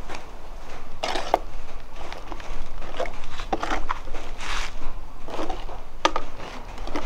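Kitchen utensils clinking and scraping against a cooking pot in a string of irregular short knocks.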